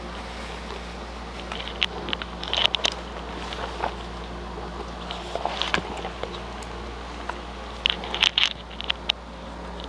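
Sheets of paper being handled and shifted on a desk: brief crackles and rustles in two clusters, a couple of seconds in and again near the end, over a low steady hum.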